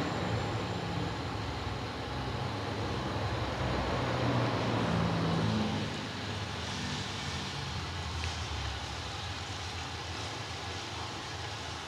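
A steady low rumble with a hiss over it, a little louder for the first six seconds and easing after that.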